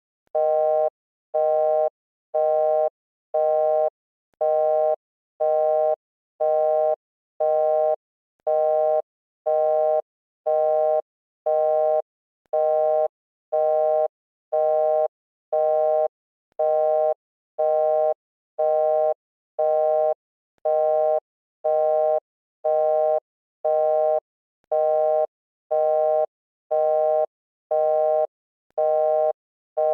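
Repeating electronic beep tone, switching on and off evenly a little under once a second, like a telephone busy signal.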